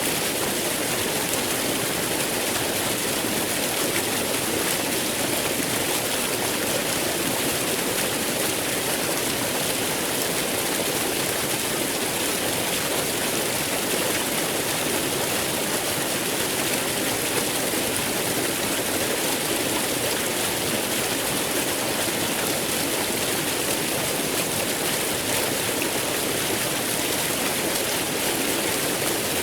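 Waterfall flowing: a steady, unbroken rush of falling water.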